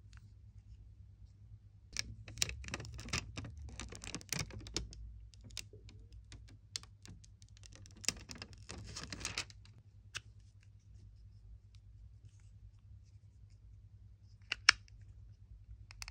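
Close handling of a Vaporesso pod vape: fingers rubbing and scraping over the metal body in two scratchy stretches, the second shorter, then a single sharp click near the end, the loudest sound. A low steady hum underlies it.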